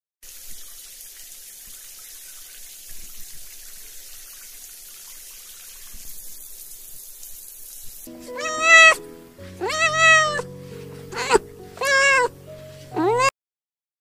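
A steady hiss for the first half, then a cat meowing five times in loud, bending calls over a steady low background tone, cut off abruptly near the end.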